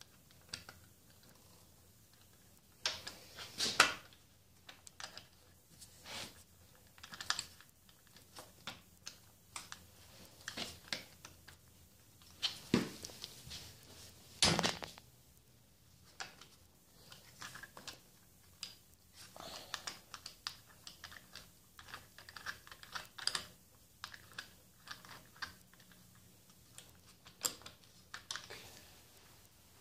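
Irregular small clicks, taps and rustles of hands fitting the metal pieces of a throttle lock onto a motorcycle handlebar end, with two sharper knocks about 4 and 14 seconds in.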